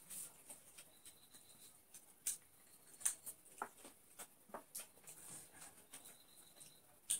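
Quiet eating sounds: scattered soft clicks and smacks of people chewing and eating by hand from plates, a few at a time.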